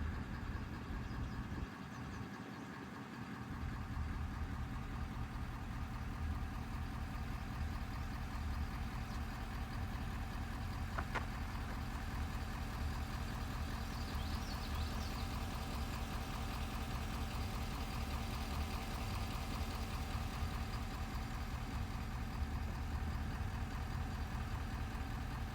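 Steady engine and road noise of a car, heard from inside the cabin while driving, a constant low hum with a single faint click about eleven seconds in.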